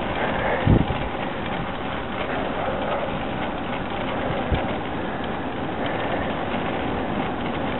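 Steady rushing wind and tyre noise on a handlebar-mounted camera as a road bike rolls along tarmac. Two low thumps are heard, a louder one about a second in and a weaker one about halfway through.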